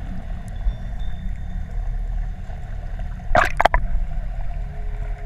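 Underwater sound picked up by a scuba diver's camera: a steady low rumble of water, with a short loud burst of bubbling gurgles about three and a half seconds in, as from the diver's exhaled regulator bubbles.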